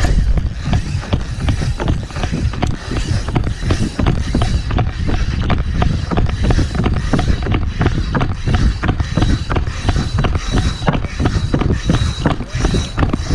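Handling noise from a camera carried on the move: constant rubbing and low rumble with a rapid, irregular run of knocks and thuds, like footsteps and the camera jostling. A faint thin high tone sits under it.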